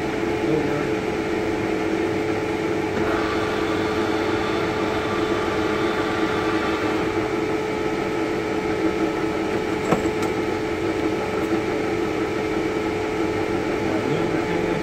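Vanguard CW61 large engine lathe running, a steady mechanical hum from its gear drive. A higher whine joins about three seconds in and fades a few seconds later, and there is a single sharp click about ten seconds in.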